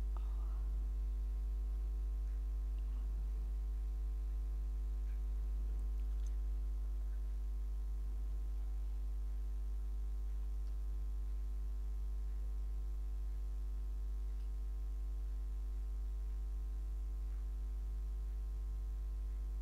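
Steady low electrical hum, like mains hum, with a stack of steady overtones above it.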